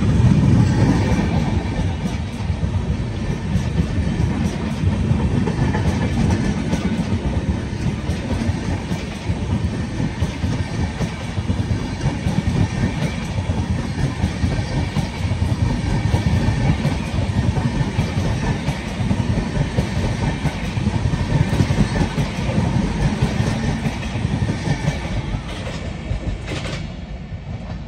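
Indian Railways express train coaches rolling past a platform as the train departs: steady wheel-on-rail noise with a deep rumble. It drops away suddenly near the end as the last coach goes by.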